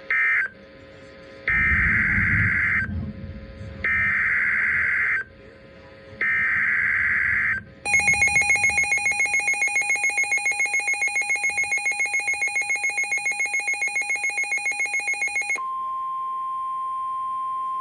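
Emergency Alert System signalling from a NOAA weather radio broadcast. A short end-of-message data burst is followed by three harsh, buzzy SAME header data bursts about a second apart, each lasting over a second, which announce a new warning. Next comes a pulsing alert tone for about eight seconds, then a steady single tone for about three seconds.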